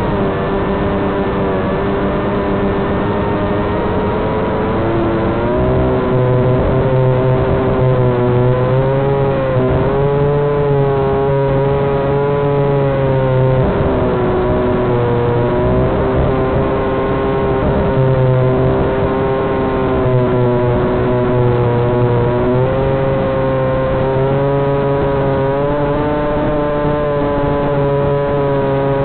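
Walkera Hifa drone's electric motors whining steadily as it flies, heard through its own onboard camera: several tones at once, each drifting up and down in pitch as the motor speeds change with the flying.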